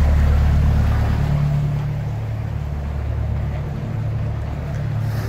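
Canal tour boat's engine running steadily, a low hum heard from inside the glass-roofed cabin, with a rushing hiss over it; it gets a little quieter about two seconds in.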